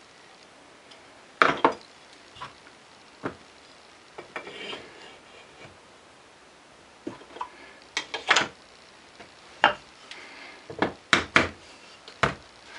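Irregular sharp knocks and metal clinks from a plane iron being fitted into a wooden hand plane and set with light hammer taps, with several taps in quick succession near the end.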